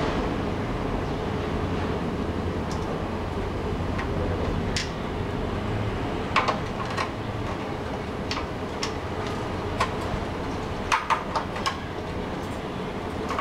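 Scattered light clicks and taps from hands handling the wiring and plastic fittings inside an opened instant electric water heater, with a quick cluster of clicks about eleven seconds in, over a steady low background rumble.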